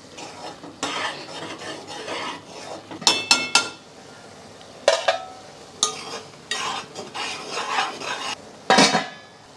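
A ladle stirring and scraping thick tomato masala frying in a metal pot on the stove. Sharp metal clinks come now and then, the loudest a quick ringing cluster about three seconds in.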